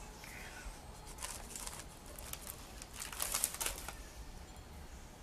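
Plastic sheet crinkling and rustling as a painted board is slid and lifted on it by hand, in short clusters of crackles, the loudest about three seconds in.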